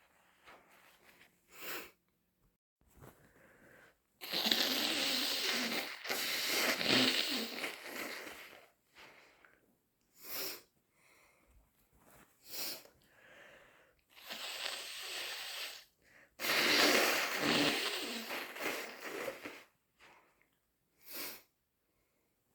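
A person blowing a congested, runny nose hard: two long, wet, noisy blows of three to four seconds each. A few short nasal bursts come in between.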